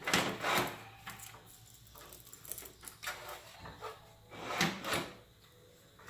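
Metal power-supply unit being slid into a computer case's bottom compartment: a series of short scrapes and knocks of metal against the steel case, loudest at the start and again about four and a half to five seconds in.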